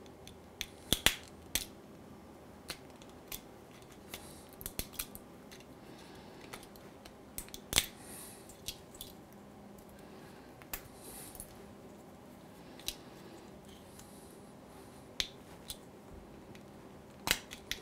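Small, irregular plastic clicks and snaps as bits of support material are picked and broken off 3D-printed plastic parts with a pocket-knife blade, with a few faint scrapes. The sharpest snaps come about a second in, near the middle and near the end.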